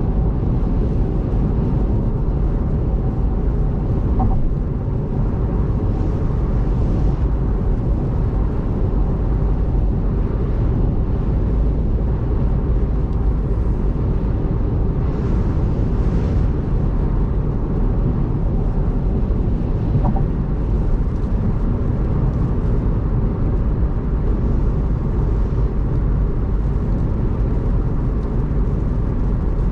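Car driving on a rain-soaked expressway: steady low road and tyre rumble, with a few faint hissing swells now and then.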